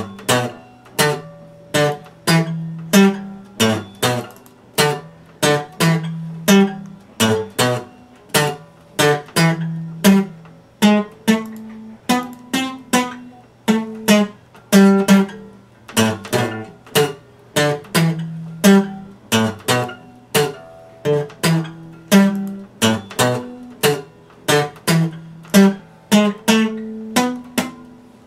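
Epiphone acoustic guitar played solo: chords struck in a steady rhythm of about two strokes a second, each ringing on, with the chord changing every few strokes.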